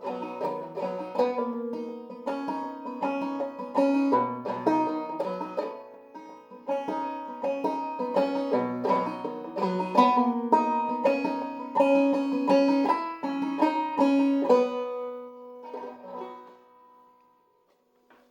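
Five-string banjo played clawhammer style in open eCGCD tuning: a quick run of plucked notes through the tune. The playing stops about fifteen seconds in, and the last notes ring and fade out.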